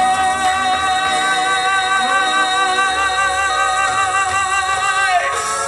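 A singer holding a long final note with vibrato over a backing track, the note falling away about five seconds in.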